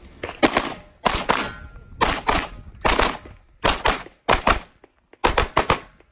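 Open-division competition pistol (a compensated race gun) fired in quick pairs, about seven pairs of two shots, one pair roughly every second. Each pair is a double tap on a target.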